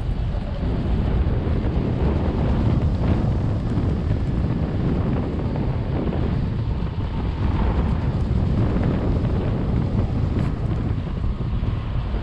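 Airflow buffeting the microphone of a pilot-mounted camera during a parascending glide: a steady, low rumbling wind noise.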